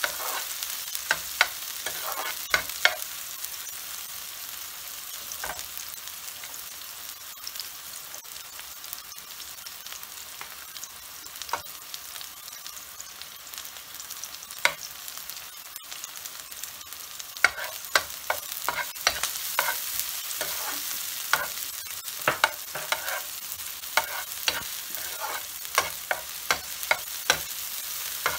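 Sliced onion sizzling in oil in a non-stick frying pan, stirred with a spatula that clicks and scrapes against the pan. The stirring clicks come thick in the first few seconds and again through the last ten, with a stretch of steadier sizzle between.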